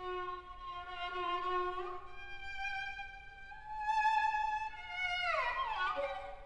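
Solo violin holding long bowed notes with vibrato, moving to a higher note about two seconds in, then sliding down in pitch in a glissando about five seconds in.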